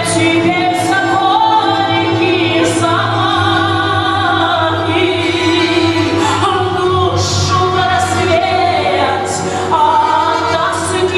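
A woman singing a Russian romance in a trained voice with wide vibrato, over an accompanying Russian folk-instrument ensemble of balalaikas and bayan.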